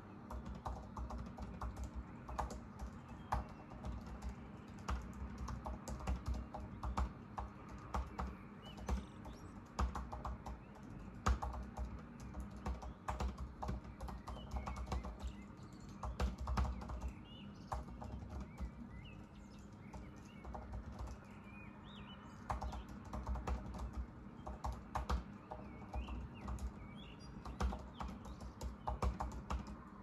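Typing on a Mac laptop keyboard: quick runs of key clicks in bursts, with a short pause a little past the middle. Faint bird chirps sound behind it, mostly in the second half.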